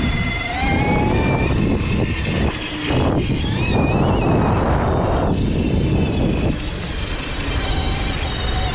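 Bafang BBS-HD mid-drive motor whining under hard load at 72 V, its pitch rising over the first second or so and then shifting with speed. A loud rushing noise lies underneath, heaviest about three to five seconds in.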